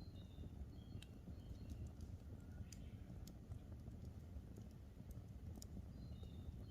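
Campfire crackling, with scattered sharp pops over a low steady rumble. A small bird gives a few short high chirps near the start and again near the end.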